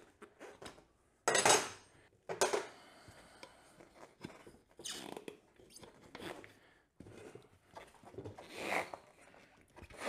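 Old, stiff motorcycle tire being worked off its metal wheel rim by hand and with a tire iron: several short rubber scrapes and scuffs against the rim, the loudest about a second and a half in.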